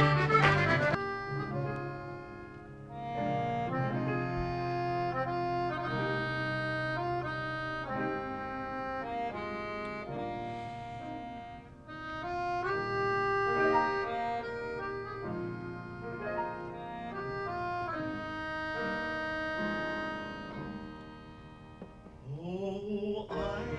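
Piano accordion playing a slow melody over held chords, its notes long and sustained.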